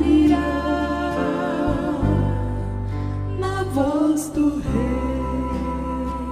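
Gospel song: sung vocal lines, held and sliding, over sustained instrumental chords and a steady bass line.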